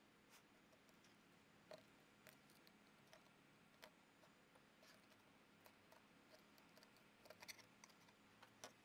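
Near silence with a few faint clicks and ticks of a fillet knife cutting through a moonfish's skin and bones on a plastic table, a handful at a time, more of them near the end.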